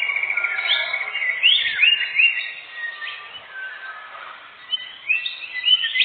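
Songbird calling: a fast trill ends within the first second, then a run of short whistled notes sweeping up and down. The notes fall quieter through the middle and come in a quick cluster near the end.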